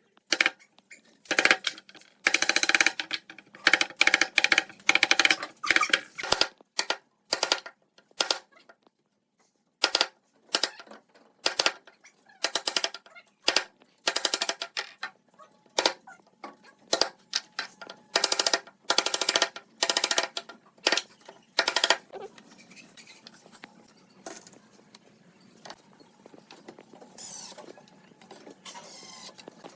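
Woodworking hand work in the workshop: a run of short, irregular scraping and knocking strokes on wood, some with a brief ring. The strokes are dense at first, come about once a second in the middle and fade to fainter ones near the end.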